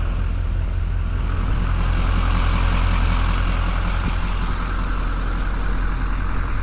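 Vehicle engine idling steadily with a deep, even drone while jumper cables are connected for a jump-start.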